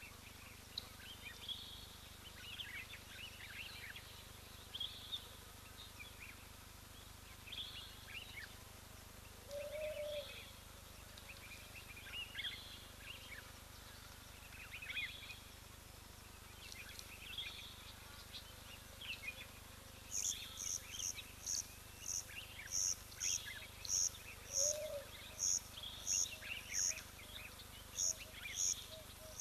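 Wild birds calling, with scattered short chirps and trills over a steady low hum. About two-thirds of the way in, one bird starts a regular series of short, high notes, roughly two a second.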